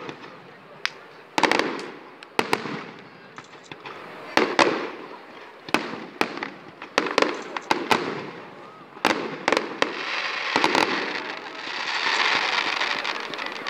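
Fireworks display: aerial shells going off in a string of sharp bangs, some coming several a second in clusters, with a steadier hiss building over the last few seconds.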